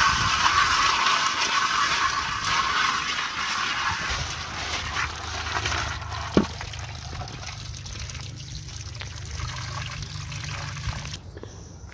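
Running water pouring and splashing into a metal pan as parboiled crawfish are rinsed and rubbed by hand under the stream. The flow is loudest for the first few seconds, then quieter, and stops shortly before the end. There is one short knock about six seconds in.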